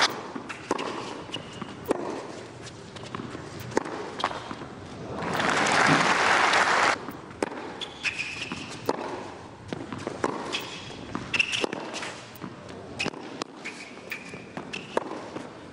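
Tennis rally on a hard court: sharp pops of racket strings on the ball and ball bounces at irregular intervals, with short high squeaks. Crowd noise swells for about two seconds a third of the way in.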